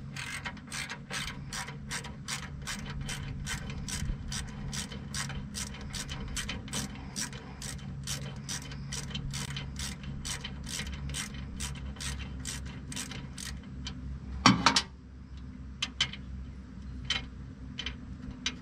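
Hand ratchet clicking steadily, about three clicks a second, while backing out a bolt on a truck intercooler bracket. The clicking stops and a single louder metal knock follows about fourteen and a half seconds in, then a few scattered clicks.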